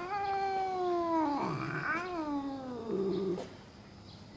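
Ginger tabby cat yowling at a rival cat in a territorial standoff. Its long, drawn-out wails slide down in pitch, three in a row, and stop about three and a half seconds in.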